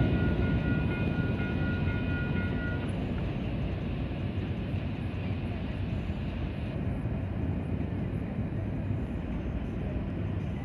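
Canadian Pacific train rumbling away over a level crossing, fading from loud to a steady lower rumble as it leaves. A ringing tone, most likely the crossing signal's warning bell, stops about three seconds in as the crossing clears.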